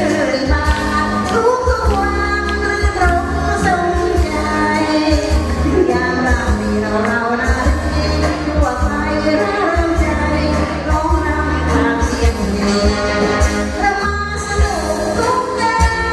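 A woman singing a Thai song into a microphone over a live band, her voice sliding between notes above a steady bass and drum beat.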